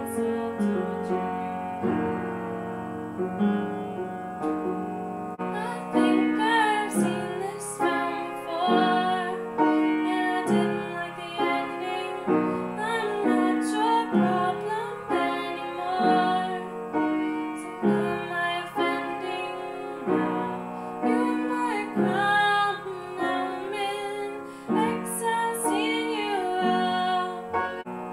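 Upright piano played with repeated chords while a woman sings along; her voice comes through most clearly from about six seconds in.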